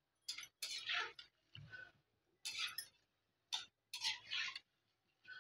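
Slotted metal spatula clinking and scraping against an aluminium kadhai while battered potato fingers are turned in frying oil: a string of short clinks and scrapes with quiet gaps between.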